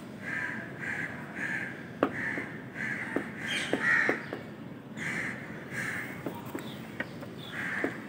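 Crows cawing over and over, in runs of short calls about two a second, with a few faint ticks between them.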